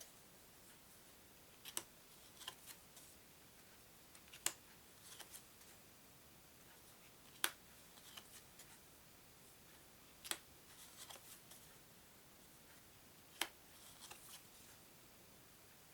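Thick Pic Flip playing cards handled and laid down one at a time: a sharp snap about every three seconds, each followed by a few softer ticks.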